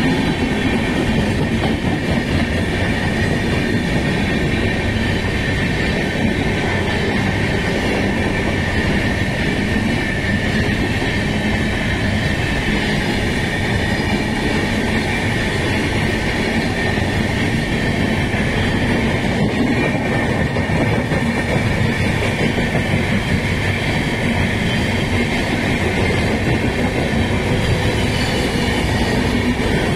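Indian Railways LHB passenger coaches passing close by at speed: a steady, loud rumble of wheels on the rails, with a faint steady high tone over it.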